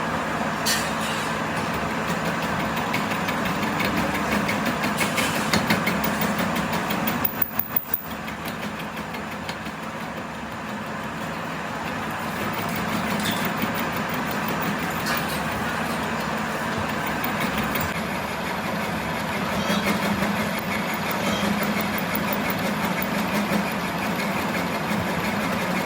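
A machine or motor running with a steady hum, and a few sharp knocks about seven seconds in.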